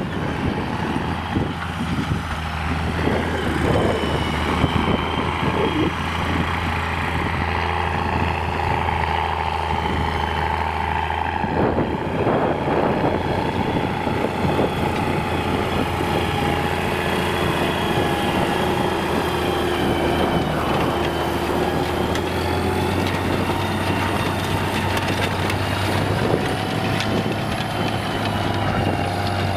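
Belarus MTZ 3022 tractor's diesel engine running steadily under load while pulling a disc harrow: a constant low drone with a whine on top that drifts slightly in pitch.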